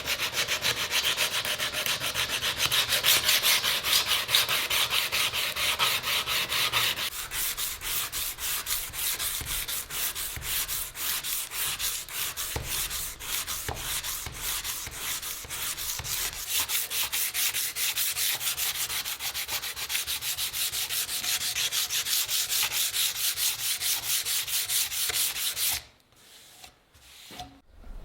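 Hand sanding: sandpaper rubbed over a workpiece in rapid, even back-and-forth strokes, stopping suddenly near the end.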